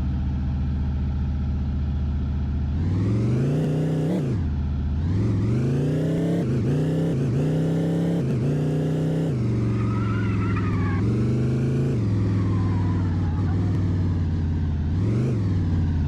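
Motor vehicle engine revving up and down repeatedly, its pitch climbing and dropping several times over a steady low running note.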